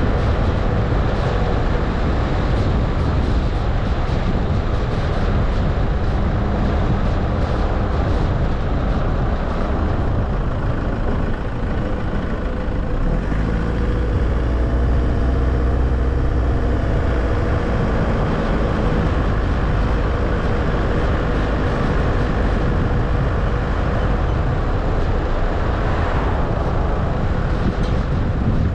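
A car driving along an asphalt road: steady engine and tyre noise with a deep rumble.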